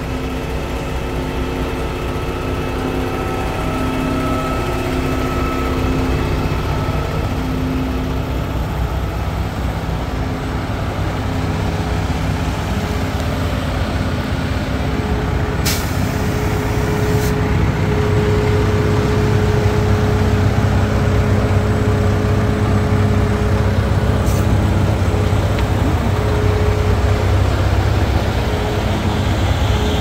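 Diesel engines of a line of concrete mixer trucks idling, a steady low rumble that grows louder in the second half. About halfway through there is a short, sharp hiss of released air from a truck's air brakes, and a brief second hiss later.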